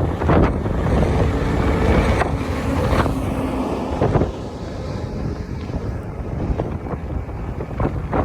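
Combine harvester engine running steadily, with wind gusting on the microphone.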